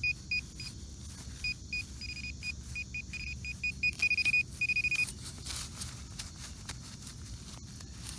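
Metal detector beeping at a single high pitch over a target in the dig hole, the beeps coming faster and longer until a held tone a few seconds in: a coin-size target, which turns out to be a quarter. Faint clicks and scrapes follow.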